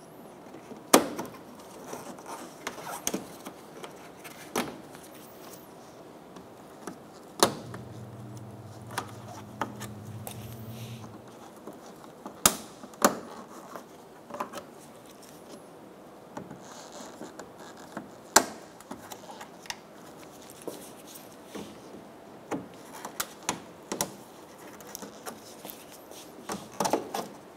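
Plastic push-type bumper retainer clips being pried out with a trim tool: a series of sharp clicks and snaps at irregular intervals, with small handling rattles in between. A low steady hum sounds for a few seconds in the middle.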